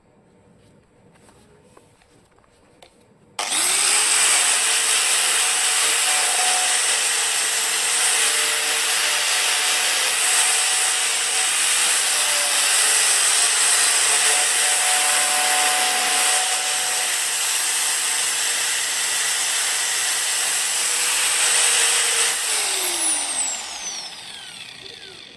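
Angle grinder fitted with a homemade DVD-and-sandpaper disc, switched on about three seconds in and spinning up almost at once, then running with a high whine and a rough sanding noise as it works the metal. Near the end it is switched off and its whine falls away as it winds down.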